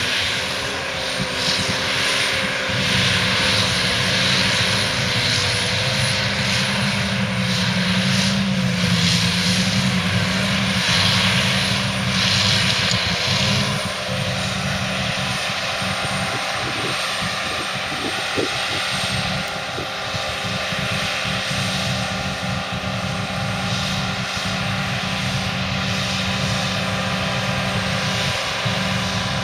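Heavy diesel silage machinery running steadily under load, its deep engine drone joined by a thin high whine. The sound eases slightly about halfway through.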